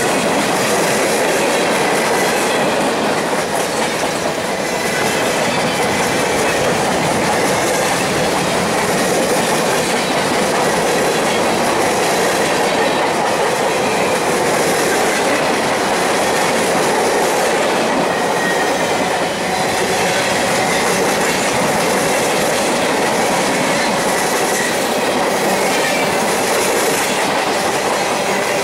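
Freight train cars (boxcars, covered hoppers and a tank car) rolling steadily past close by, their steel wheels clattering on the rails, with a faint high squeal from the wheels at times.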